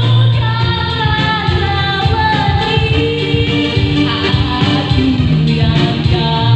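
Woman singing a slow melody with long, sliding held notes into a microphone during a vocal sound check. A Yamaha electronic keyboard accompanies her with a steady bass line.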